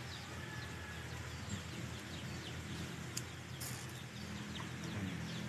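Chickens in a backyard pen: faint, scattered short chirps over a low, steady hum, with a brief rustle about three and a half seconds in.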